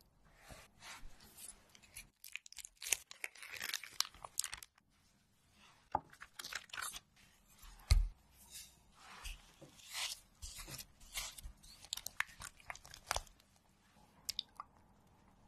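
Close-miked kitchen food-handling sounds: crisp crackles and clicks, then one heavy thud about halfway through as a block of cream cheese lands in a wooden bowl, followed by soft squelching and scraping as the cheese is mashed and stirred smooth.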